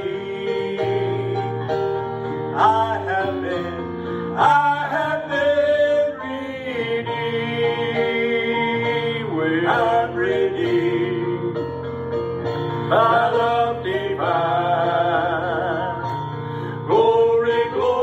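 Gospel song: a voice singing a melody with vibrato over instrumental accompaniment.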